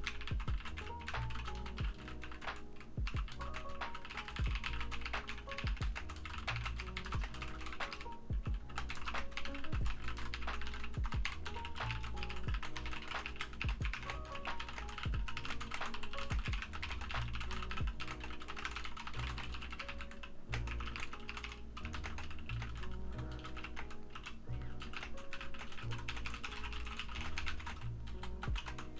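Fast, continuous typing on a Logitech G Pro X mechanical keyboard: a dense, uneven run of key clacks. Lo-fi background music with a repeating melody plays underneath.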